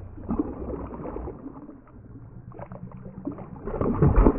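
Hooked fish thrashing and splashing at the water surface, a run of irregular splashes that grows louder near the end as the fish leaps clear and churns the water.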